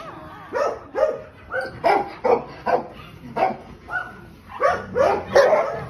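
Newborn puppies crying in short, high squeals, about two a second, as they are held to a nursing foster mother dog's teats.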